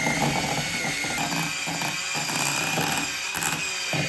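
Handheld electric mixer running steadily, its twin beaters whisking cheesecake batter and knocking irregularly against a glass bowl. The motor's whine steps up a little in pitch about a second in.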